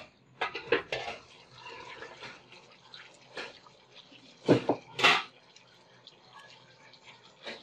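Sliced coconut pieces tipped from a plate into an aluminium pot of hot meat curry, with light wet patter and clinks of the plate against the pot. Two louder knocks come about four and a half and five seconds in.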